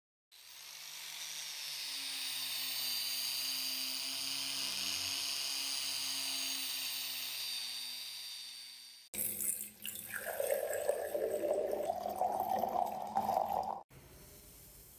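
Buffing wheel on a small rotary tool polishing the brass burner tube of an antique blowtorch: a steady hiss over a low motor hum, fading in and out over about nine seconds. It gives way to about five seconds of liquid pouring and splashing.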